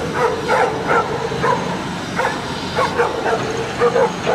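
A pack of stray dogs barking over and over, about two to three barks a second.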